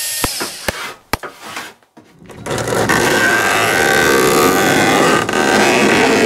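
A few sharp clicks, then from about two and a half seconds in a steady scratchy scraping as a utility knife is drawn through window-screen mesh, trimming the excess along the frame.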